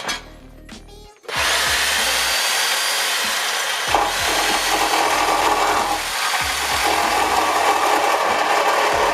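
A power cutoff tool starts up about a second in and cuts steadily into car-body sheet metal: a loud, even, hissing grind, with a faint whine rising briefly soon after it starts.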